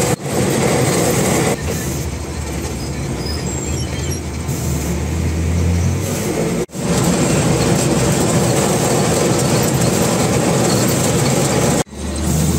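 Engine and drivetrain of an M35A2 6x6 army truck running under way, heard from inside the cab: a steady low drone with rattly noise over it, cut off abruptly twice for a moment.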